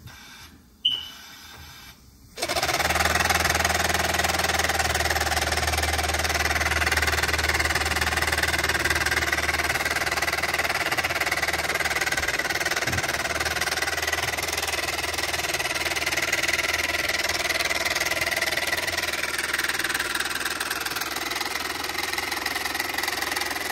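Paper V-twin engine running on compressed air, starting about two seconds in: a steady hiss of air with a low hum underneath.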